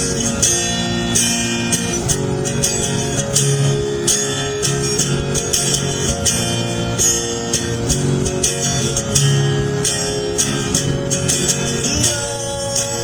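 Instrumental music: sustained plucked-string notes over a steady percussion beat.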